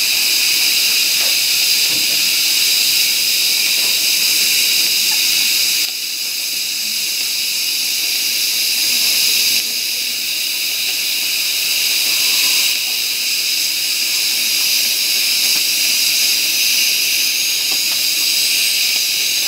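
Dental suction tube hissing steadily as it draws off sodium hypochlorite irrigant during root canal cleaning. Its level drops abruptly a few times.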